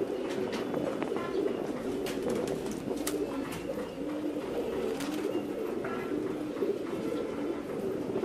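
Domestic pigeons cooing continuously, several birds overlapping, with a few faint higher chirps and two or three sharp clicks.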